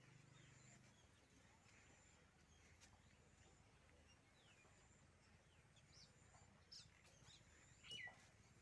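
Near silence with a few faint, short bird chirps scattered through it, the clearest ones in the last couple of seconds.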